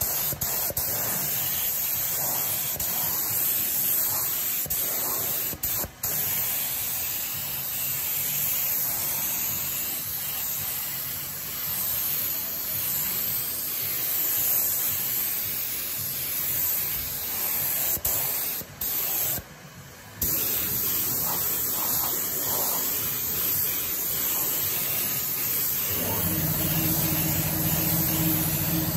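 HVLP spray gun hissing steadily as it sprays red paint. The trigger is let go briefly about six seconds in and again for about a second and a half around two-thirds through. A low, steady motor hum starts near the end.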